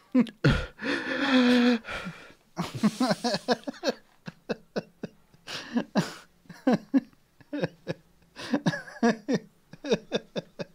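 A man's put-on coughing, wheezing and gasping breaths, with short grunts in between, mimicking someone sick and short of breath.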